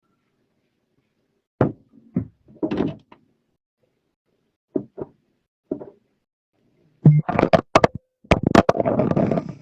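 A series of knocks and thuds: single knocks scattered through the first six seconds, then a quick cluster of sharp knocks and clatter near the end.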